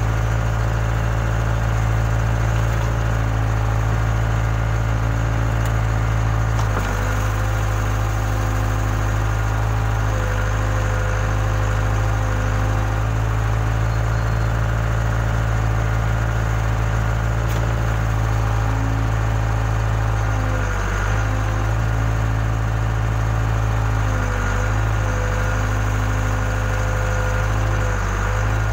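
Case 580K backhoe loader's diesel engine running steadily under work. Its pitch sags briefly a few times, about seven seconds in and again several times in the last ten seconds, as the load comes on.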